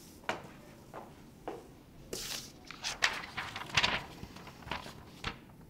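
Sheets of paper rustling and being handled on a table, in a string of short, irregular rustles and light knocks, busiest in the middle.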